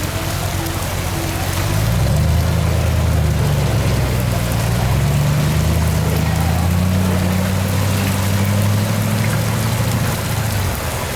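Steady rain, with a low engine drone that comes in about two seconds in, rises slowly in pitch and fades out near the end.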